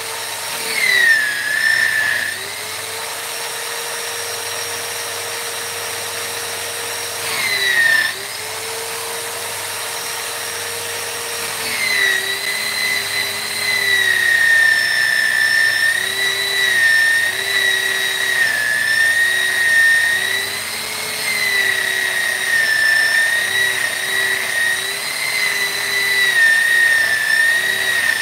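Handheld electric power tool running with a steady high whine. Its pitch dips briefly twice, then wavers up and down for the second half as the tool is worked under load.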